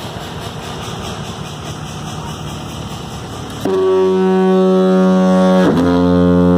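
The Walter Fanning fog signal, a compressed-air diaphone foghorn, sounds one loud, deep blast starting about three and a half seconds in. It is a steady low tone with many overtones, and its pitch dips briefly about two seconds into the blast before holding again.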